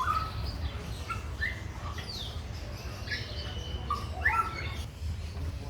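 Birds chirping: scattered short chirps and quick sliding calls, several in a row, over a steady low rumble.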